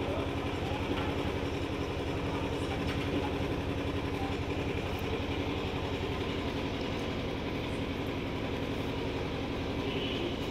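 An engine idling steadily with a fast, even throb and a constant hum.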